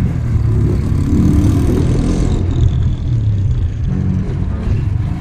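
Small motorcycle engine running while riding along a street, with wind noise on the microphone.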